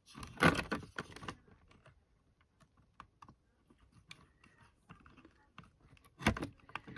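Fingers handling a plastic OO gauge model locomotive on its track: scattered small clicks and taps, with a louder rustling burst about half a second in and a sharper knock just after six seconds.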